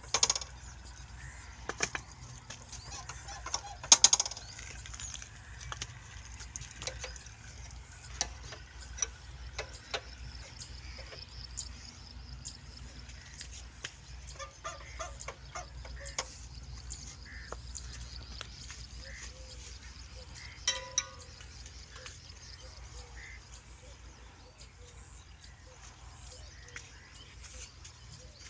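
Scattered metallic clicks and knocks from hand work on the fuel-injection pump of an old Ruston Hornsby diesel engine, with a loud sharp clank about four seconds in and another about two-thirds of the way through, over a low steady rumble.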